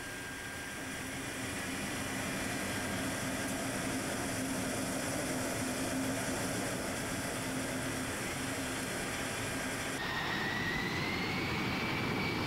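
C-17 Globemaster III's turbofan jet engines running with a steady whine. About ten seconds in, the sound changes abruptly and the whine rises slightly in pitch.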